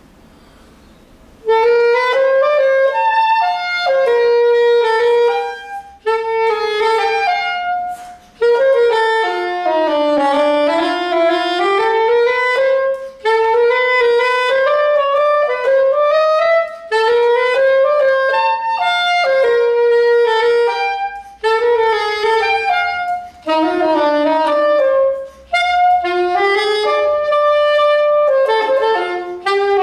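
Alto saxophone playing an unaccompanied melody. It starts about a second and a half in and moves in phrases, with short breaths between them.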